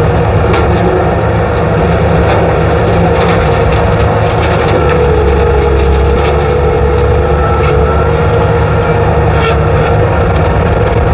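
Skid steer with a rotary cutter attachment running, a loud, steady engine rumble with a whine that sags slightly about halfway through, while knocking down brush.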